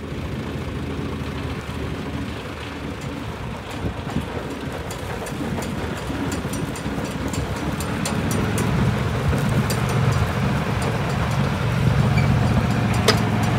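Massey Harris 44 Standard tractor engine running as the tractor drives, getting louder over the last few seconds as it comes closer, with scattered sharp ticks.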